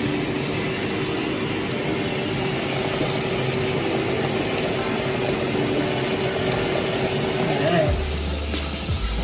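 Chicken deep-frying in a pot of hot oil: a steady, dense crackling sizzle of bubbling oil. About eight seconds in, a low hum joins it.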